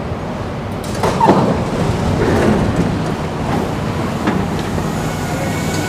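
Singapore MRT train doors and platform screen doors sliding open about a second in, over the steady hum of the stopped train, with a few clicks and knocks afterwards.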